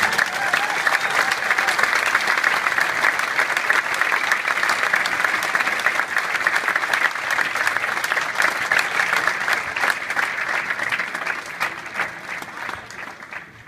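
Large audience applauding, breaking out suddenly at the end of a sung performance and tapering off in the last couple of seconds.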